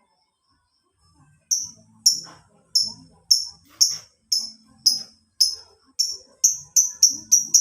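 Lovebird giving a series of short, sharp, high chirps, starting about a second and a half in, about two a second at first and quickening to about three a second near the end.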